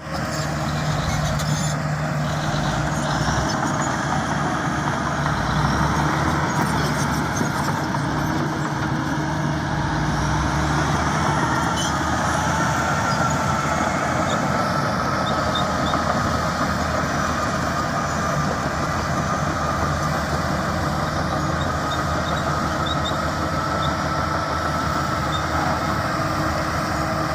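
Diesel engines of a bulldozer and a road roller running steadily under work. A faint high whine comes in about twelve seconds in.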